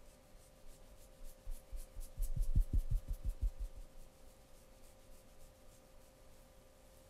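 Hands scratching and rubbing in a massage, with a quick run of soft low thumps from about two seconds in that lasts under two seconds. A faint steady hum sits underneath.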